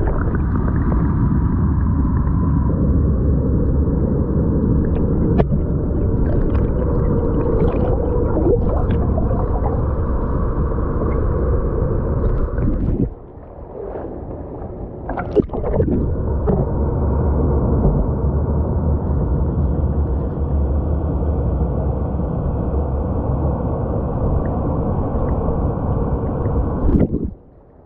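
Muffled, steady rumble and gurgle of churning river water, heard through a camera held underwater, with a few faint clicks. About 13 seconds in it drops away for a few seconds as the camera nears the surface, then comes back.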